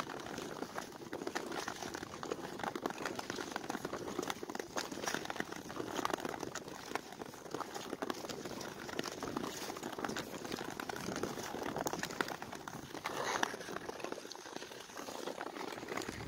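Ice skate blades gliding and scraping over natural lake ice, a continuous crackling rasp with a few louder strokes.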